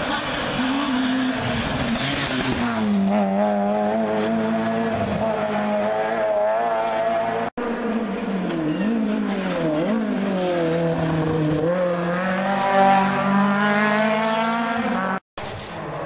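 Rally car engine revving hard along a forest stage, its pitch climbing under acceleration and dropping sharply with gear changes and braking. The sound breaks off abruptly twice for a moment.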